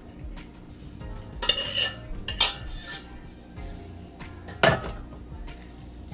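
A metal spoon scraping and clinking against cookware as macaroni and cheese is spooned and spread in a glass baking dish. There are a few short scrapes and knocks, the sharpest about three-quarters of the way through.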